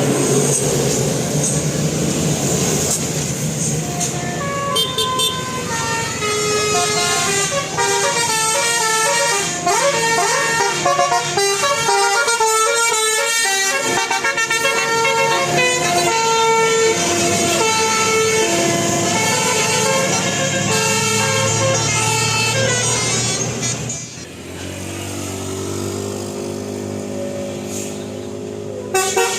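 Indonesian bus 'telolet' musical air horn of the Basuri type playing a fast melody of stepping notes, after a few seconds of rushing noise. Near the end the tune changes to lower, longer held notes.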